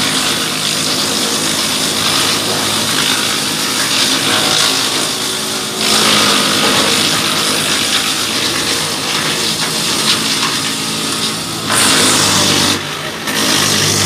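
Tractor-driven Hasatsan DP 700 T wood chipper running under load, shredding branches fed into its hopper, over the steady hum of the tractor engine. The chipping noise grows louder about six seconds in.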